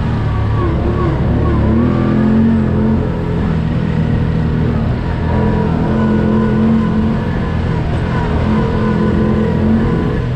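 Engine of a side-by-side off-road vehicle (UTV) running while driving over a dirt trail, heard from the driver's seat, its pitch rising and falling as the throttle changes.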